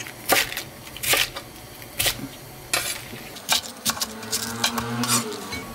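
Chef's knife slicing lengthwise through a napa cabbage heart and knocking on a wooden surface: a series of sharp, crisp cuts, about one a second at first, then a few in quicker succession past the middle.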